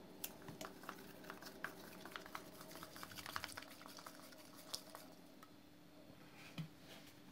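Blue slime mixture stirred in a white bowl with a craft stick: a quick run of small clicks and wet ticks as the stick scrapes and taps the bowl, dying away about five seconds in, then a single knock near the end.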